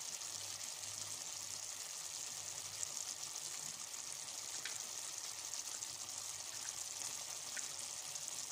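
Chicken pieces and freshly added potato chunks sizzling in a stainless steel pot: a steady hiss with a few faint ticks.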